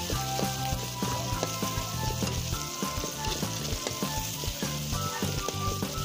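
Onions, garlic and chilies sizzling in hot oil in a steel wok, with frequent clicks and scrapes of a metal spatula stirring them against the pan.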